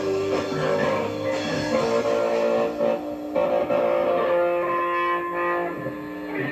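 Electric guitar playing a run of notes and chords.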